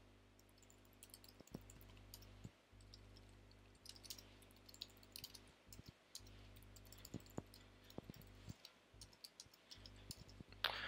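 Faint, irregular clicks of a computer keyboard and mouse, scattered throughout, over a steady low hum.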